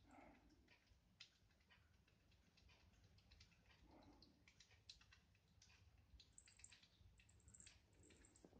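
Plantain squirrel gnawing on a piece of food: faint, irregular small clicks.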